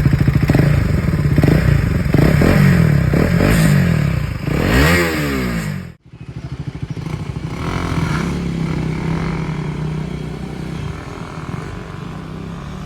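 KTM Duke 250's single-cylinder engine running with the dB killer removed from its exhaust silencer, giving an open, unbaffled exhaust note. It is revved several times in the first six seconds, cuts off abruptly about six seconds in, then runs at a steadier speed.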